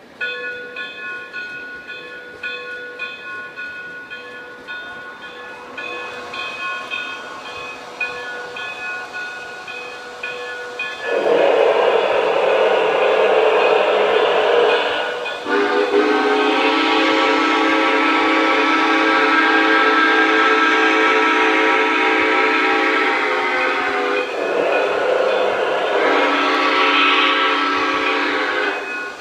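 Onboard sound system of a Lionel Vision Line O-gauge Santa Fe 2-10-10-2 No. 3000 steam locomotive model, standing still. Quieter steady idling sounds give way, about 11 seconds in, to a loud rush of hiss, then a long steam whistle blast held for about eight seconds, and a second whistle near the end.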